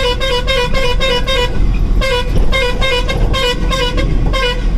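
Truck horn honking in rapid pulses, about four a second, with a short break about a second and a half in, over the low rumble of the running engine. The horn is sounding at a vehicle blocking the road.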